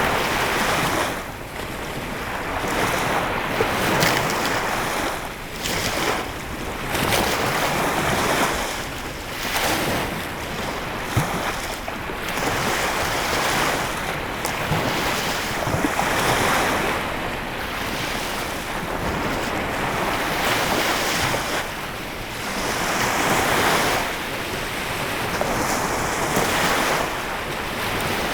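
Lake Michigan waves washing onto the shore, a steady surf that swells and eases every few seconds, with some wind noise on the microphone.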